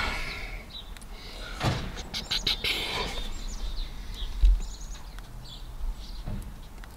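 Birds chirping faintly in the background, with a short cluster of clicks about two seconds in and a single low thump a little past the middle.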